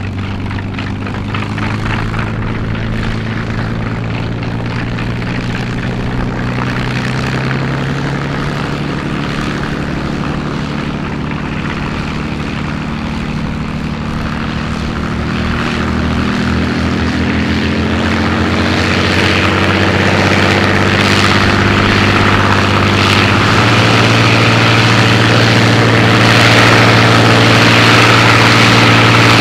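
Voodoo's modified P-51 Mustang Rolls-Royce Merlin V-12 running on the ground with the propeller turning, its engine speed and loudness climbing gradually through the second half.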